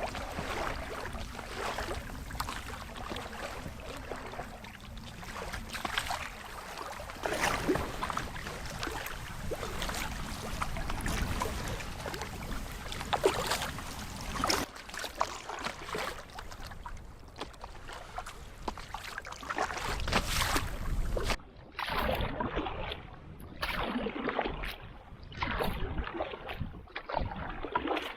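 Canoe paddle strokes splashing irregularly in the water, with water lapping at the hull and wind rumbling on the microphone.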